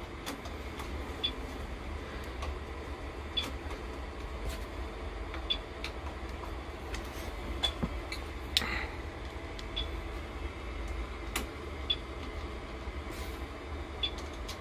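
APC Smart-UPS 2200 alarm chirping a short high beep about every two seconds, its warning that the battery pack is disconnected, over a low steady hum. Scattered sharp clicks of a screwdriver and metal being handled.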